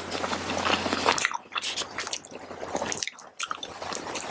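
Close-up chewing of a mouthful of fried rice with tofu and crunchy green pepper: moist, squishy chewing with small crunches, pausing briefly twice.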